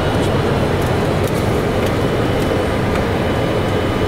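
Steady rushing noise inside a Boeing 747-400F flight deck on final approach: airflow over the nose and the four engines at approach thrust, with faint steady high tones and a few light clicks.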